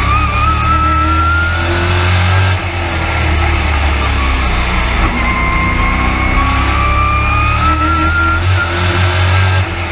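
Race truck's engine at racing speed, heard from inside the cab: its pitch climbs under acceleration, eases off about two and a half seconds in, then builds again and drops near the end, as the truck drives the straights and lifts for the turns.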